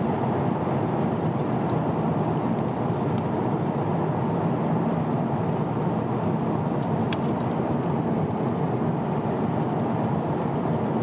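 Airliner cabin noise in flight: a steady low rush of engines and airflow, with a few faint clicks.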